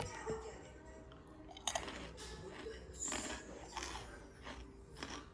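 Irregular crunching of crusty bread, with a few sharper crunches in the middle.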